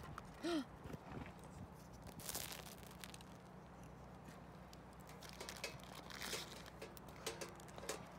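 Faint rustles, crinkles and soft clicks of a s'more being put together by hand, as a chocolate square and a graham cracker are pressed onto a toasted marshmallow on its stick. A short rising-and-falling tone sounds once about half a second in.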